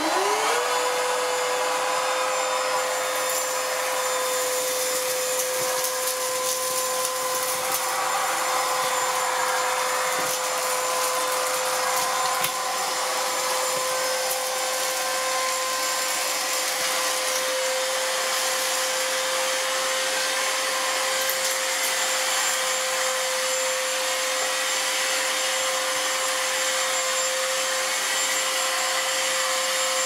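Silvercrest 22.2 V cordless cyclonic stick vacuum switched on, its motor spinning up within half a second to a steady high whine over a strong rush of air. The motorised brush head sweeps over a tile floor, with scattered ticks as debris is sucked up.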